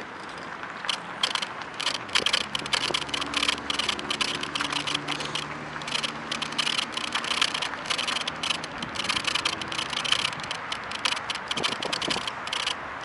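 Phone holder on a Kugoo V1 Plus squeaking and clicking rapidly and unevenly while riding, with a faint low hum from about two seconds in until nearly nine.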